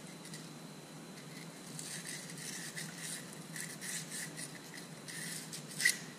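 Emery cloth scrubbing rust and grime out of the pilot bore in the end of a Mercedes OM617 diesel's crankshaft, in short repeated rasping strokes. A sharp click near the end is the loudest sound.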